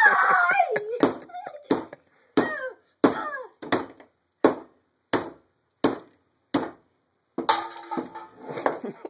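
Claw hammer blows on a smashed Kyocera Loft cell phone lying on a wooden workbench: about nine sharp strikes, roughly two-thirds of a second apart, each cut off short.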